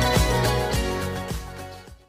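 Intro music with a steady beat, fading out over the last second.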